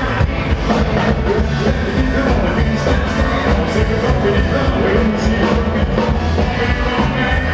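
Live rockabilly band playing with a steady driving beat: upright bass, drum kit, electric guitar and keyboard.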